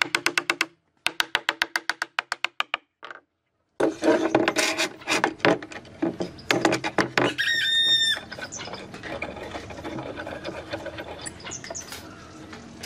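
Wooden mallet tapping rapidly on a glued-up pine board panel held in pipe clamps, each knock with a short ringing tone. After a short break come clicks, knocks and a brief squeak as the steel pipe clamps are handled and tightened.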